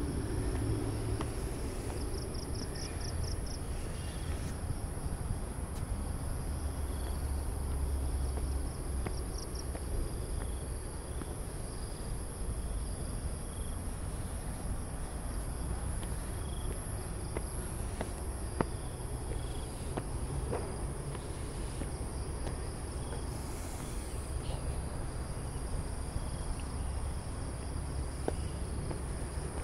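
Steady high-pitched chorus of insects at dusk, with a low rumble beneath it and a few short rapid trills near the start.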